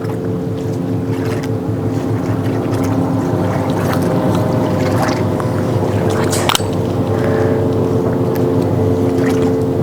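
Motorboat engine running at a steady speed, a constant drone with a single sharp click about six and a half seconds in.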